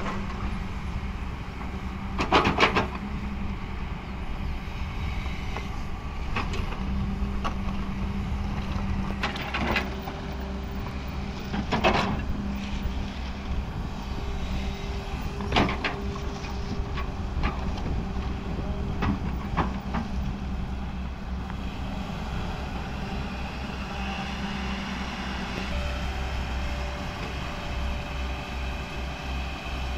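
Hyundai crawler excavator's diesel engine running steadily while it digs. Several sharp knocks from the bucket and arm come through, the loudest about two and a half seconds in, with others around ten, twelve, fifteen and nineteen seconds in.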